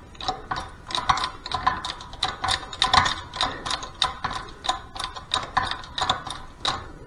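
Bench shop press being worked to bring its ram down onto the bearing installer on a Harley 5-speed drive gear: a fast, uneven run of mechanical clicks, about three a second.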